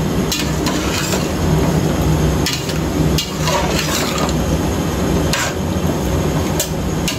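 Metal spatula scraping and knocking against a stainless steel pot while wet raw chicken pieces are stirred, in irregular clinks over a steady low hum.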